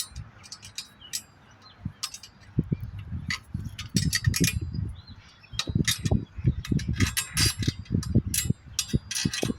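Metal parts clinking and rattling as a screw and metal rod are fitted through a hole in a bicycle frame by hand. There are irregular sharp clicks throughout, and from a few seconds in, a run of low knocks and handling bumps.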